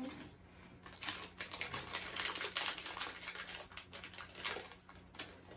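Crinkly plastic packaging being handled and torn open, a dense run of crackles and rustles.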